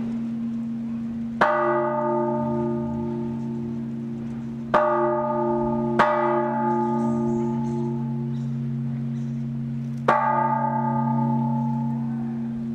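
Church bells in a bell tower being struck four times at uneven intervals, the second and third about a second apart. Each strike rings on and fades slowly over a steady deep hum.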